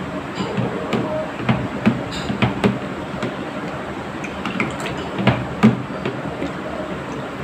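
A long metal spoon stirring syrup into a liquid mixture in a plastic jug: irregular knocks and taps of the spoon against the jug, with the liquid sloshing.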